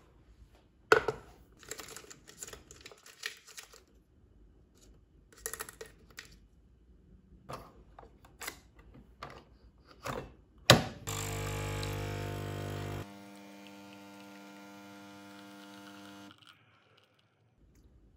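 Nespresso capsule machine: metal capsules clinking as one is taken from a glass jar, then the top lever clacks shut on the capsule. The pump starts with a loud buzzing hum for about two seconds, then runs at a quieter steady hum while the coffee brews, and cuts off about sixteen seconds in.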